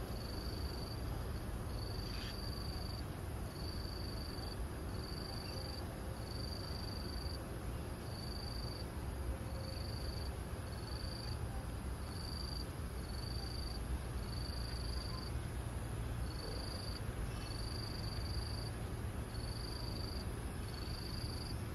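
An insect calling: a high, even note repeated in short pulses about once a second, over a steady low rumble.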